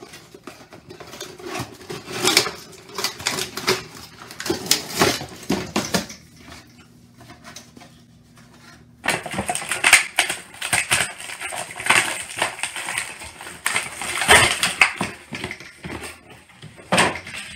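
Cardboard box and plastic packaging being handled as a toy gumball machine is unpacked: irregular rustling, scraping and knocking. It quiets for a few seconds in the middle, then picks up again suddenly.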